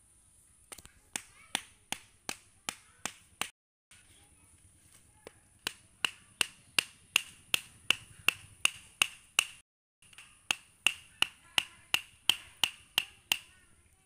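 Sharp, evenly spaced clicks, about three a second, over a steady high hiss; the sound cuts out completely twice, about three and a half and ten seconds in.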